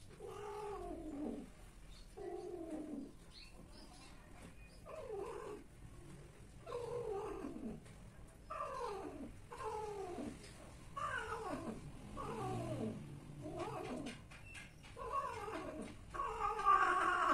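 Cat caterwauling during mating: a string of about eleven drawn-out yowls, each falling in pitch, coming one after another every second or so.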